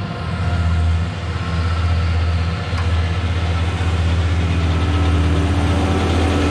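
John Deere tractor's diesel engine running at a steady speed while pulling a mower through standing rye, with a steady engine drone and a broad whir over it.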